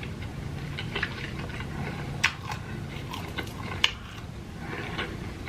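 A person chewing food close to the microphone, with a few sharp mouth clicks, the loudest about two and four seconds in.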